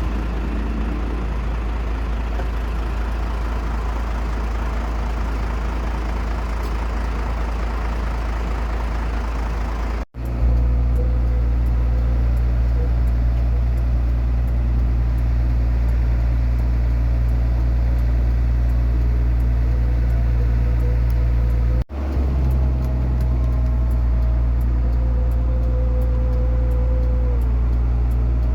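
Aircraft engines running steadily with a deep, constant rumble, in three stretches cut together, with a brief drop-out at each cut. In the later stretches a faint engine whine holds steady, then drops in pitch near the end.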